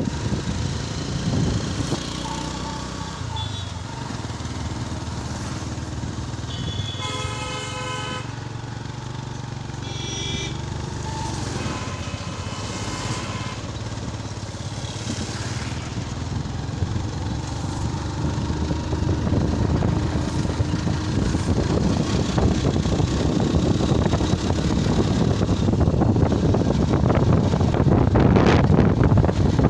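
Motorcycle engine running steadily while riding, with a vehicle horn honking for about a second about seven seconds in and again briefly about ten seconds in. A rushing noise of wind and road grows louder over the second half as the ride goes on.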